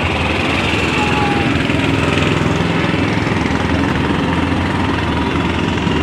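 A small engine running steadily at idle, a continuous low drone.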